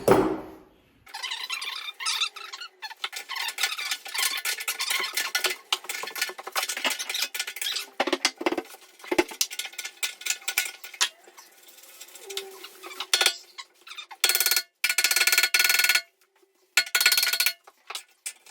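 Metal clinking, squeaking and scraping of hand tools working on old bath and sink fittings, in many short irregular strokes, with a couple of steadier, abruptly cut passages near the end.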